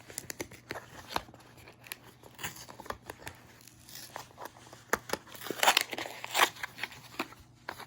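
Paper and cardboard packaging of a cable box being handled and picked at: scattered clicks and crinkling, with two louder scrapes near the end.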